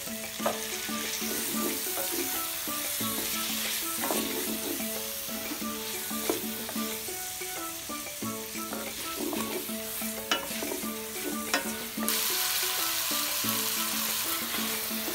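Tomato wedges, shallots, garlic and ginger sizzling in hot oil in a stainless steel pot while being stirred, with a few sharp knocks of the wooden spatula against the pot. The sizzle gets louder about twelve seconds in. Soft background music plays underneath.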